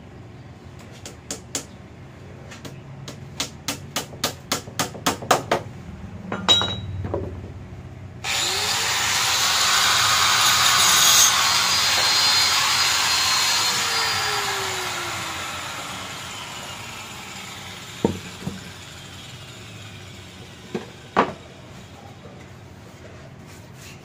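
Hammer driving nails into plywood, about a dozen strikes coming quicker and quicker. Then an angle grinder starts with a rising whine, runs loudly for about three seconds, and winds down slowly with a falling whine after it is switched off. A few single knocks follow near the end.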